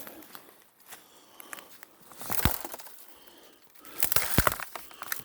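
Footsteps crunching through dry leaves and brush, in two bursts of crackling about two seconds apart.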